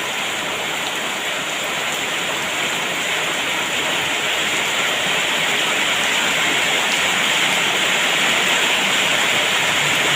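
Heavy rain pouring down steadily, growing gradually heavier and louder.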